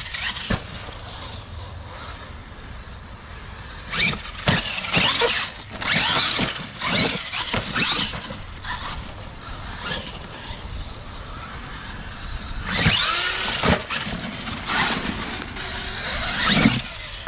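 RC monster truck's electric motor whining in repeated bursts, rising and falling in pitch as it accelerates and slows on the dirt course.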